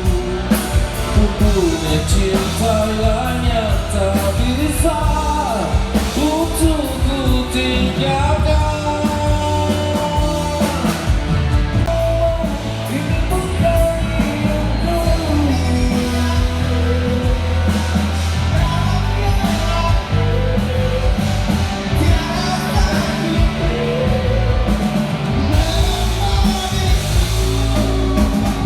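Rock band playing live through a PA with a lead vocal over a steady bass line and drums.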